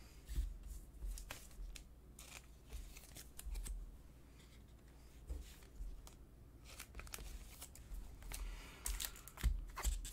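Glossy Prizm trading cards being handled and shuffled on a tabletop: faint, scattered clicks and slides of card on card. Denser rustling near the end as a foil pack is picked up.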